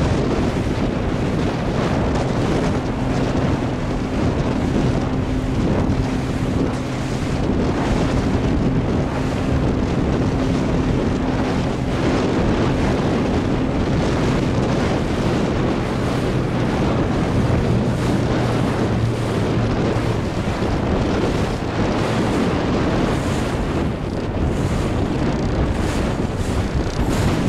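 Wind buffeting the microphone over rushing water and breaking chop, with a low, steady engine hum underneath from the motorboat carrying the camera; a higher part of that hum fades out about halfway through.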